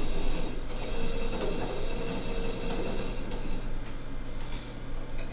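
Small electric fibre-spreading device running with a steady mechanical whir as it spreads short wool snippets over a glass slide, over a constant low electrical hum; the whir changes about three seconds in.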